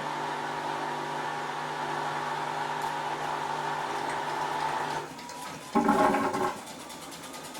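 Esatto EFLW9 front-loading washing machine running with a steady motor hum that stops about five seconds in, followed by a short, louder burst of water noise.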